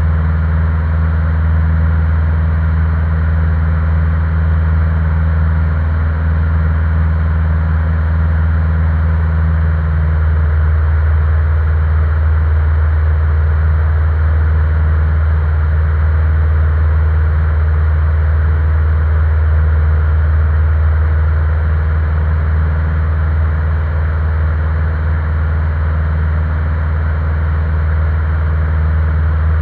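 Single-engine light aircraft's piston engine and propeller running steadily in flight, heard inside the cockpit as a constant low drone. One of its higher tones drops away about ten seconds in.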